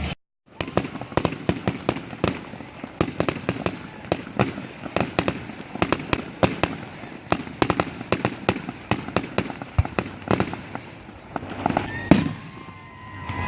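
Fireworks going off in rapid succession: dense crackling pops, several a second, with one loud bang about twelve seconds in. The sound drops out for a moment right at the start.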